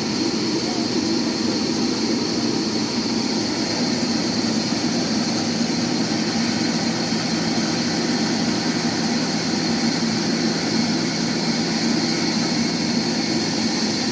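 Sawmill machinery running steadily: a constant loud mechanical drone and hiss with no breaks, a low steady hum joining in about halfway through.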